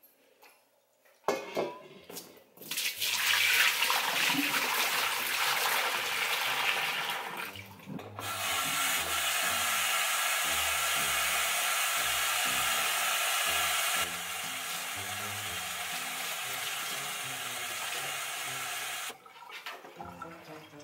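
Kitchen tap running into a stainless steel sink as tie-dyed fabric is rinsed under the stream. The water runs for a few seconds, breaks off briefly, then runs steadily for about eleven seconds, a little quieter partway through, and shuts off near the end.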